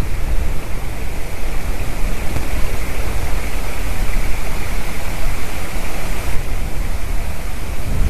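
Loud, steady rushing noise on the nest webcam's microphone, heaviest in a churning low rumble. No bird call stands out above it.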